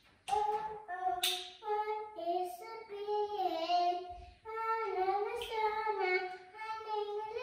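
A small child singing a tune in held notes that step up and down, with short breaths between phrases.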